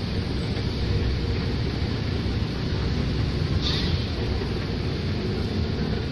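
Steady low rumble of a shopping-mall escalator running while being ridden down, with a brief hiss about three and a half seconds in.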